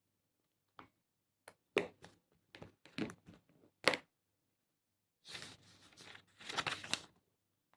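Crinkling and rustling of something being handled: a run of sharp crackles, then a longer rustle about five seconds in.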